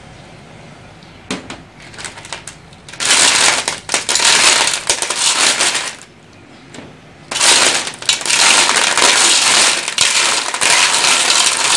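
Small clam shells rattling and clattering against each other and the aluminium pot as a hand tosses them. A few light clicks about a second in, then a loud stretch of clattering from about three seconds, a short pause around six seconds, and loud clattering again from about seven seconds.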